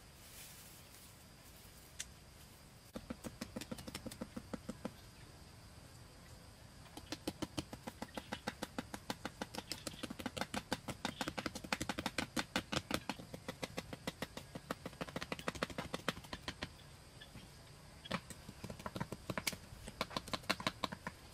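Wooden stakes being hammered into soil with a stick: quick, sharp knocks, about four or five a second, starting about three seconds in and running in long bursts with a short pause near the end.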